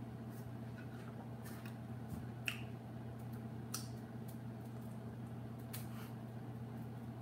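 A person sipping a drink from a glass, with a few faint lip smacks and clicks, over a steady low hum in a quiet room.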